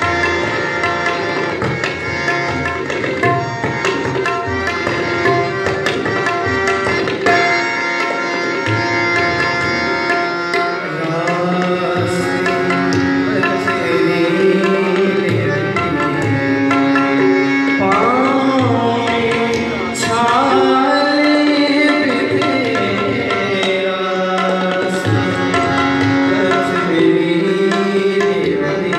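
Two tabla sets played together in quick strokes over a sustained melodic accompaniment. From about ten seconds in, the accompaniment moves in stepwise phrases.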